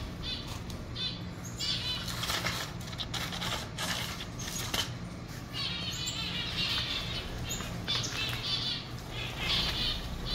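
Many small aviary finches, zebra finches among them, chirping in short repeated calls, with occasional brief flutters of wings.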